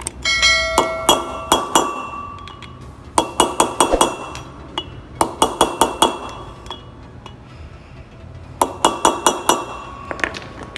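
Hammer striking a drift to drive a new wheel-bearing outer race (cup) into a rear brake drum hub. It sounds as quick runs of five to seven sharp, ringing metallic taps, in four bursts with pauses between, and one last tap near the end.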